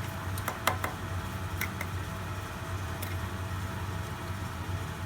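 Grazioli Fortuna metal lathe running with a steady hum, with a few light sharp clicks in the first couple of seconds.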